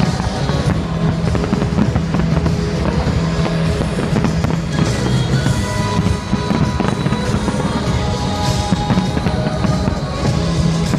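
An aerial fireworks display bursting and crackling without a break, mixed with loud music with held notes.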